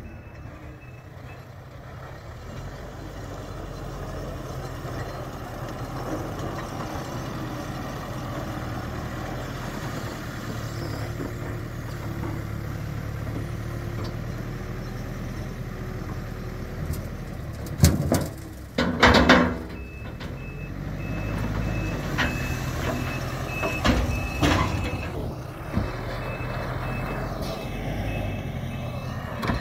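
Tractor and loader diesel engines running steadily while manure is loaded into a spreader trailer, with two loud thuds a little past halfway and a few smaller knocks later. About two-thirds of the way in, a reversing alarm starts beeping steadily.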